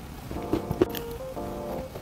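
Background music playing held notes that change every half second or so, with a couple of short crunches from a cookie being bitten into, about half a second and a second in.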